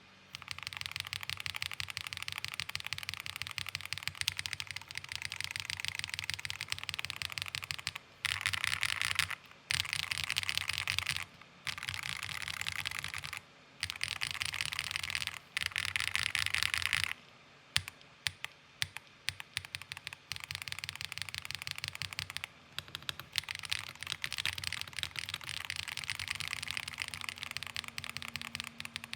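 Fast typing on a Monsgeek M1 V5 TMR keyboard with Owlabs Ti HE magnetic switches and GMK doubleshot ABS keycaps: rapid keystroke clacks in stretches broken by short pauses, a few stretches louder than the rest.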